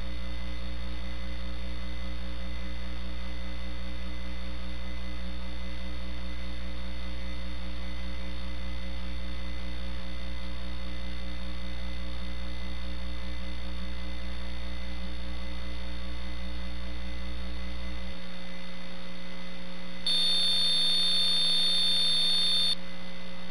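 Steady electrical mains hum with several faint fixed tones. Its deepest part drops out near the end, and a high-pitched whine joins for about two seconds.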